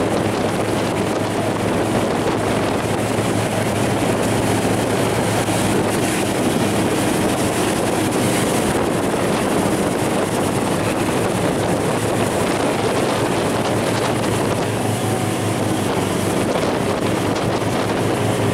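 Motorboat engine running steadily at speed while towing, with rushing wake water and wind buffeting the microphone.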